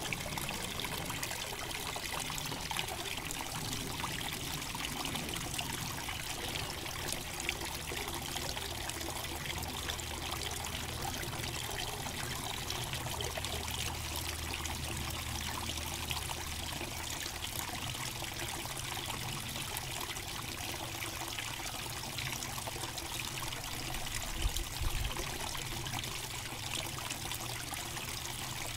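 Small waterfall trickling and splashing steadily into a lined backyard pond.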